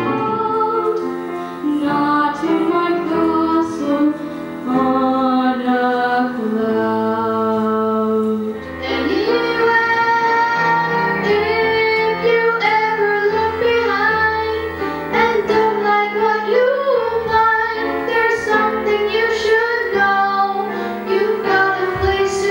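Children singing into microphones with grand piano accompaniment: first two girls in a duet, then, after an abrupt change about eight seconds in, a boy singing with the piano.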